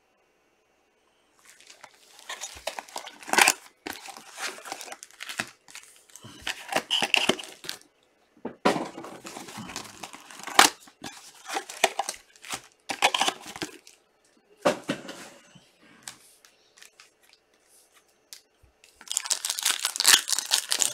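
Foil trading-card packs and their box being torn open and handled, a run of irregular tearing and crinkling with a few sharp rips. After a lull of a few seconds, dense crinkling of a foil wrapper starts near the end.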